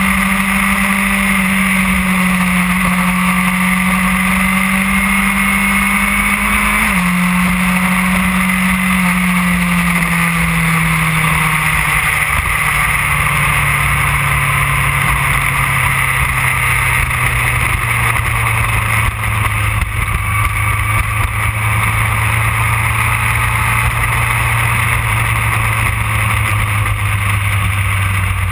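Yamaha R1 inline-four engine heard on board under way. Its note holds steady, drops abruptly about seven seconds in, then falls steadily over a few seconds and settles at a lower, even pitch, over a constant rush of wind and road noise.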